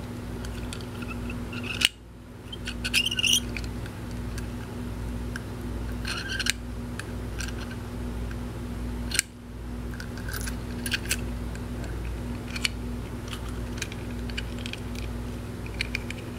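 Small, irregular metal clicks and clinks of an antique padlock being handled and its shackle worked, with two sharper clicks about 2 and 9 seconds in, over a steady low hum.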